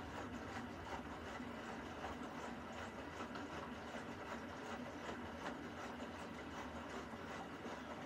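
Beko front-loading washing machine running a wash cycle: the drum turns with water sloshing and splashing irregularly inside, over a steady hum.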